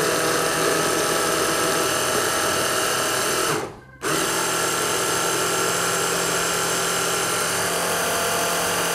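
Electric hand blender motor driving a mini chopper bowl, running with a steady whine as it purées chickpeas, tahini and garlic into hummus. It stops for a moment about three and a half seconds in, then starts again.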